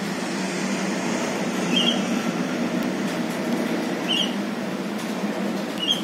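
Javan myna giving three short, high squeaky chirps about two seconds apart, over a steady low background hum.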